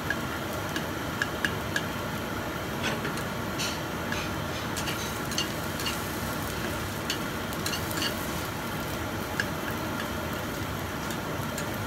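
Egg frying in a nonstick pan with a steady sizzle, while a metal slotted spatula stirs and scrapes it with irregular clicks.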